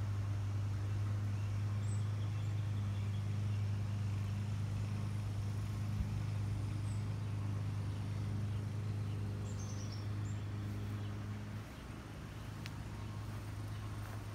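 A steady low machine hum that drops away about twelve seconds in, with a few faint high bird chirps.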